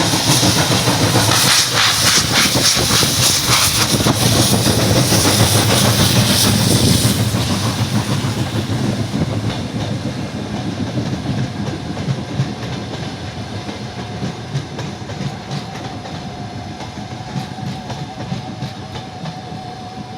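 LV-class steam locomotive passing with a passenger train: a loud hiss of steam for about the first seven seconds, then the carriages' wheels clicking over the rail joints as the sound fades away.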